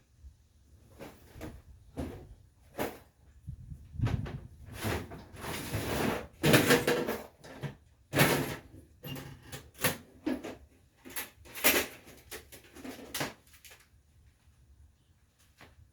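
Tools being handled and shifted about: an irregular run of knocks, rattles and scrapes, with a longer scraping stretch around six seconds in, dying away a couple of seconds before the end.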